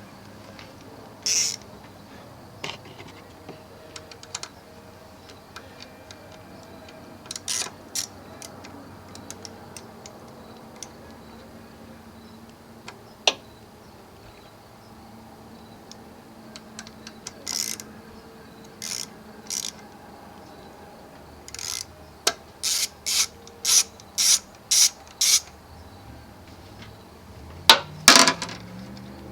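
Hand-tool work on the car: scattered clicks and knocks, then a run of about seven short strokes roughly half a second apart, and a louder clatter near the end.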